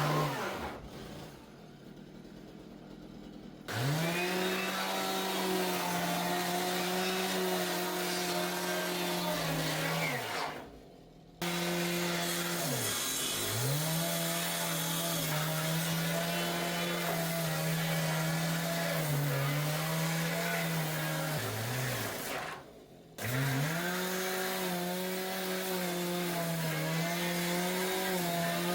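Electric power saw cutting wood in three runs: the motor spins up to a steady high whine, dips slightly in pitch as the blade bites, then winds down, with short pauses between cuts.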